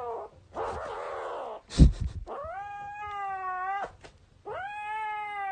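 A cat yowling in long drawn-out calls, two of them held for more than a second each. A breathy, noisy stretch comes about a second in, and a sharp thump near two seconds is the loudest moment.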